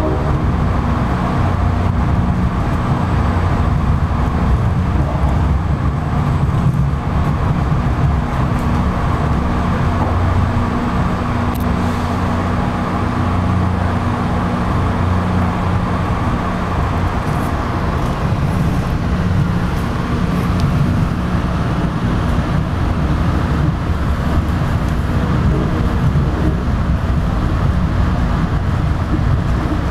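MBTA commuter rail train heard from inside a moving coach: a steady rumble with a constant low drone, and a few faint clicks from the wheels over the track.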